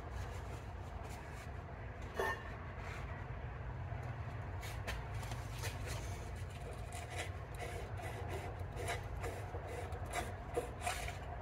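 Short, irregular scratchy rubbing strokes of abrasive cloth on the steel shaft of a tractor bevel gearbox, dressing down a burr that keeps the shaft from sliding out of its bore.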